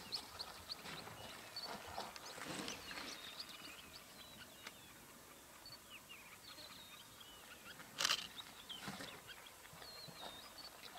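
Small birds chirping, with a brief splash of water about eight seconds in as an African elephant drinks at a waterhole.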